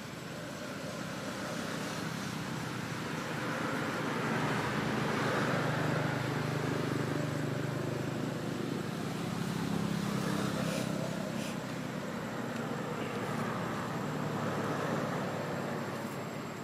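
Road traffic: a steady rumble of passing vehicles that swells and fades several times.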